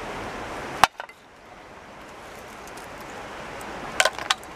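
Steady outdoor background noise with one sharp click about a second in, then a quick run of metallic clinks near the end, from scrap metal pulled up on a fishing magnet.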